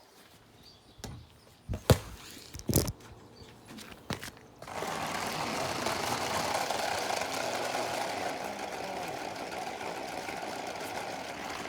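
Radio-controlled car: a few sharp knocks and clicks, then about five seconds in its motor starts and runs with a steady whir.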